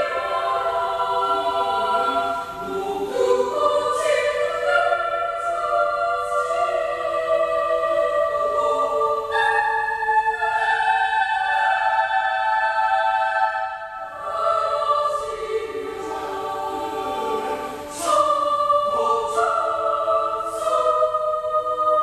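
Children's choir singing in long, sustained, legato phrases, with voices in several parts. The sound dips briefly between phrases about two-thirds of the way through, and again a few seconds later.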